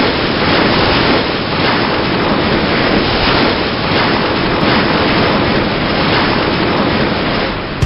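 Large ocean waves breaking in a big swell, a steady dense rush of whitewater surf.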